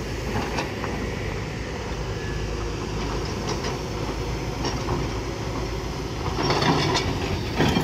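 Heavy tracked excavators' diesel engines running steadily, with scattered clanks and knocks of buckets and rock. A louder clatter comes about six and a half seconds in, and a sharp knock near the end.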